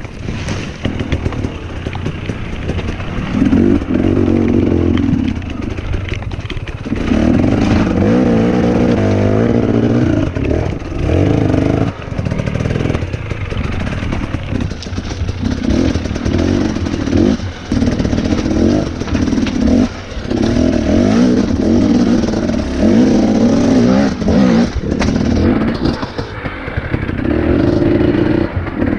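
A 2017 Husqvarna TE 250 two-stroke enduro motorcycle engine revving up and down over and over as it is ridden down rough rocky ground. The throttle is blipped and chopped, with knocks and clatter from the bike hitting rocks.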